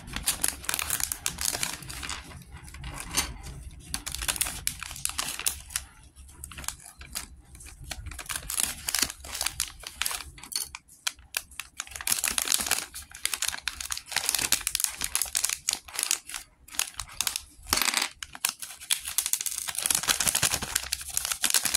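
A LEGO minifigure blind-bag packet being torn open and crinkled by hand, with irregular sharp clicks.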